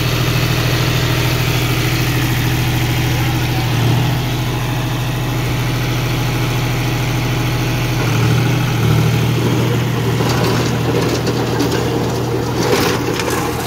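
John Deere 5045D PowerPro tractor's three-cylinder diesel engine running steadily at working revs, about 1500 rpm in low range, while it pulls a rotavator through dry soil. Scratchy rattling noise joins in over the last few seconds.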